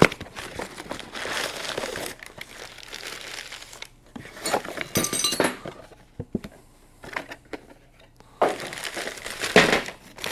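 Hands handling metal fuel-line fittings and parts: rustling and crinkling, a sharp click at the start, and a few light metal clinks about halfway through.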